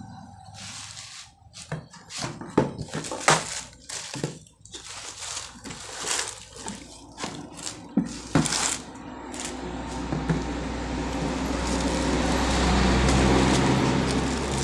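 A cardboard box being opened out and plastic-wrapped power adapters being handled: irregular crinkles, rustles and knocks for about the first ten seconds. After that a steady low rumble swells and eases off.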